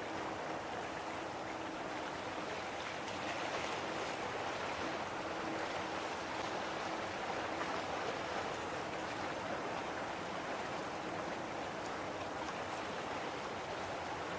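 Distant jet airliner on final approach, its Rolls-Royce Trent XWB engines heard as a steady rushing noise, with a faint low hum in the first half.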